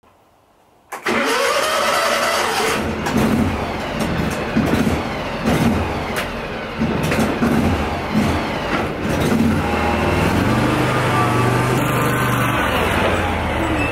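Engine of a John Deere Gator utility vehicle starting about a second in, then running with uneven revs as the vehicle pulls away, settling to a steadier drone near the end.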